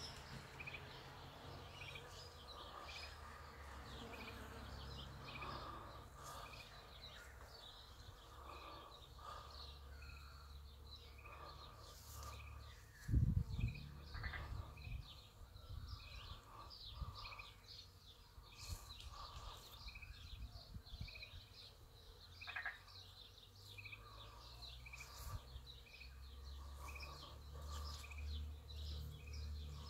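Outdoor birdsong: one bird repeating a short high chirp about once a second, with other birds calling over it. A low rumble on the microphone runs underneath, and a single thump comes about halfway through.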